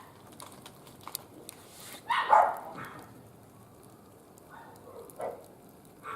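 A dog barking: one loud bark about two seconds in and a shorter one about five seconds in.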